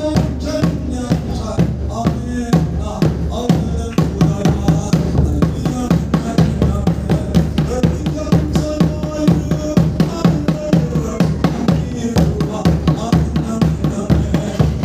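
Music with a steady drum beat, about three hits a second, under a sustained melody, in the style of a Mizo spiritual song (thlarau lam zai).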